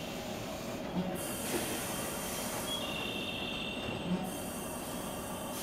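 Stationary 113 series electric train idling at a platform with its equipment running: a steady hum. About every three seconds a soft thump is followed by a hiss, and in between a steady high tone sounds for about a second.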